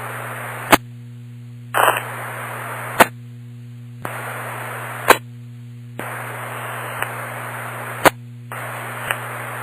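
Police radio scanner channel with no voice: keyed carriers of static hiss switching on and off every second or two, each change marked by a sharp click or a short squelch burst, over a steady low hum.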